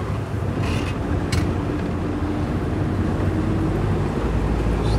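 Engine and road noise of a moving vehicle heard from inside the cabin, a steady hum. Two short clicks about a second in.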